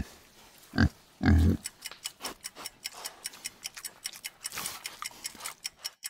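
A pig grunting, two short grunts about a second in, followed by a countdown timer ticking about four times a second.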